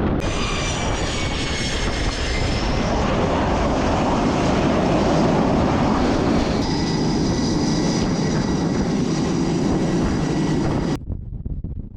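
Jet aircraft engine noise: a loud steady rush with a high whine that falls slightly in pitch early on. It cuts off abruptly about eleven seconds in.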